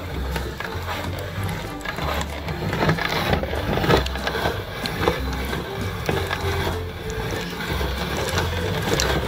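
Meat grinder extruding ground candy through its plate, with irregular clicks and crackles, over background music with a stepping bass line.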